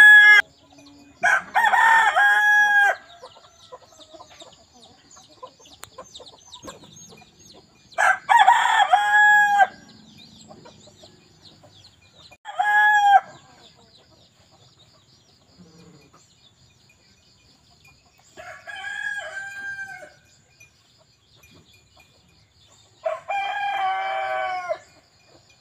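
Rooster crowing again and again: about five crows a few seconds apart, each a second or two long, the last two quieter.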